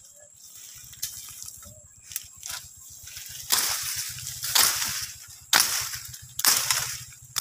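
Machete hacking through grass and brush, each cut a swish with rustling leaves: a few faint cuts, then about five stronger ones roughly a second apart in the second half.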